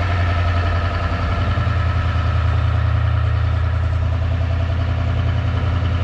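Vehicle engine idling steadily with a deep, even low drone.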